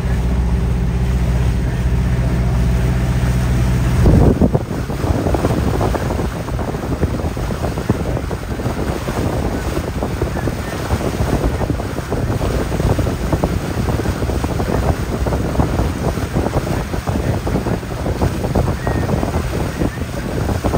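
A boat's engine drones steadily for about four seconds, then its drone stops. After that, wind buffets the microphone over the rush of sea water.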